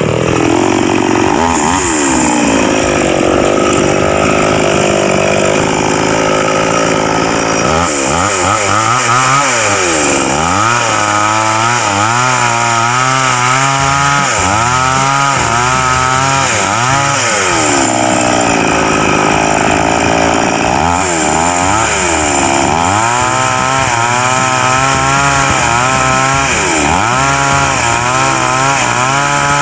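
Petrol chainsaw running at high revs while cutting through a log. Its engine pitch drops again and again as the chain bites into the wood, then climbs back as it frees up.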